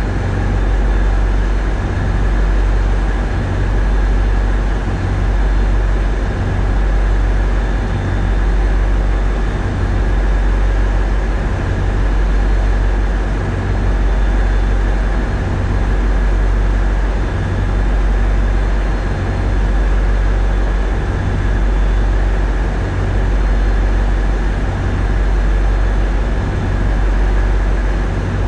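Tugboat diesel engines droning steadily, heard from the wheelhouse: a heavy low rumble that swells and dips about every two seconds.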